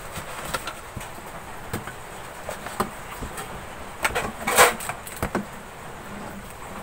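Handling noise from the phone camera being repositioned over a workbench: scattered light clicks and knocks, with a louder rustling scrape about four and a half seconds in, over a steady hiss.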